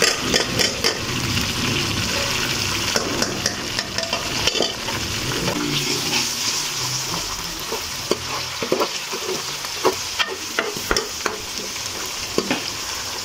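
Chopped onion, garlic, tomato and green chillies sizzling in hot oil in a pan while a steel spoon stirs and scrapes them, with scattered clicks of the spoon against the pan.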